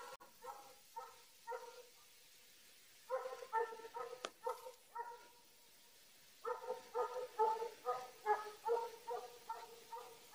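Belarusian hound baying in runs of repeated yelping barks, the voice of a scent hound driving a hare on its trail. The barking breaks off twice, then comes thicker and faster from about six seconds in.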